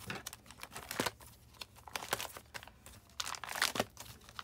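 Clear plastic sleeves of a sticker binder crinkling and rustling as the pages are flipped and handled, with a scatter of small crackles, busiest about a second in and again near the end.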